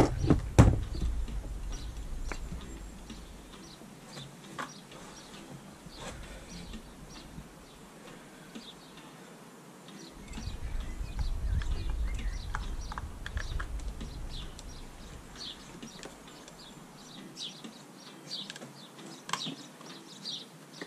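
Small birds chirping in the background, with scattered light clicks and a low rumble in the first few seconds and again about ten seconds in.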